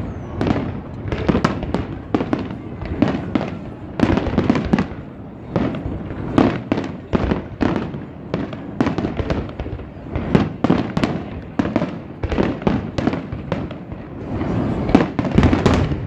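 Aerial fireworks display: a rapid, irregular string of shell bursts and crackling, several bangs a second.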